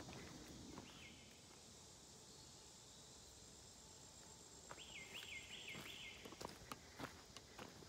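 Faint woodland ambience: a steady high insect hum, over which a bird gives one short downward-slurred note about a second in and then a quick run of four such notes about five seconds in. Footsteps on a dirt trail near the end.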